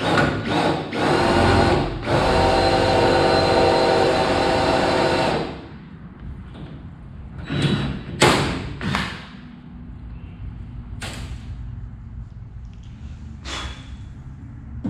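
Drill drilling out a badly set rivet in an aluminium hull: a few short bursts, then a steady run of about three seconds that stops suddenly, followed by several brief, quieter bursts.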